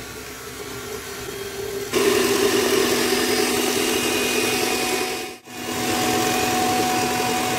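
Electric mixer beating eggs, sugar and water into a sponge-cake batter, its motor running steadily; it steps up to a louder, faster speed about two seconds in and cuts out for a moment about five and a half seconds in before running on.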